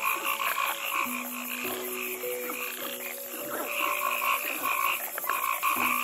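Frogs croaking: fast, pulsing calls repeated several times a second, thinning out for a moment about three seconds in.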